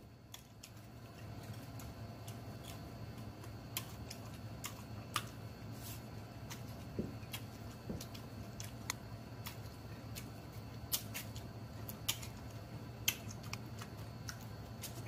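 Close-miked mouth sounds of a person eating smoked sausage: chewing with irregular sharp clicks and wet lip smacks, over a faint steady low hum.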